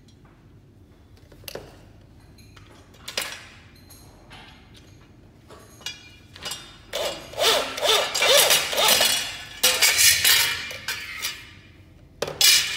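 A few light metal clinks as aluminum shelf parts are handled. Then a corded electric drill runs in several short bursts for about four seconds, driving a screw into the metal bracket, with a sharp metal clank near the end.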